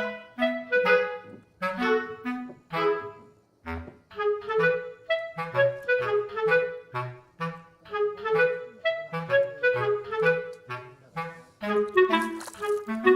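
Background music: a bouncy tune of short, detached notes over a moving bass line.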